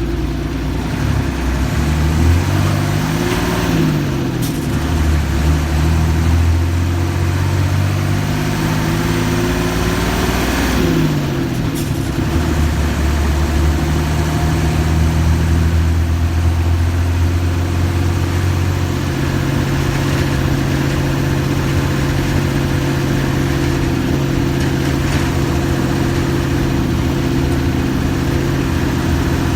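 Mercedes-Benz OF-1315 bus diesel engine, its speed rising and falling through the first dozen seconds, then running steadily. It drops to a lower steady speed about two-thirds of the way in.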